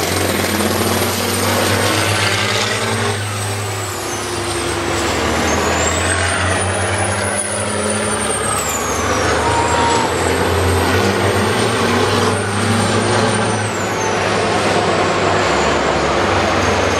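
Several diesel semi-truck tractors racing around an oval track, their engines running loudly and steadily, with a high whistle rising and falling over the engine noise.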